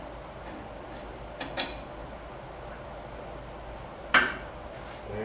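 Metal clinks of a wrench on a mower blade bolt and the steel blade and deck: two light clinks about a second and a half in, then one sharp clink that rings briefly about four seconds in.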